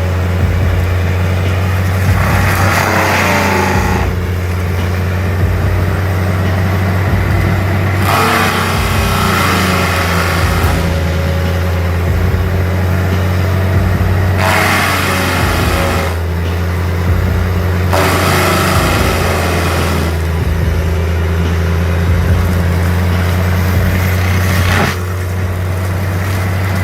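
Heavy engine of a Prinoth Raptor 300 tracked mulcher running under load. A steady low drone is broken every few seconds by a surge of harsh grinding noise while the engine pitch drops, as it lugs working through wood.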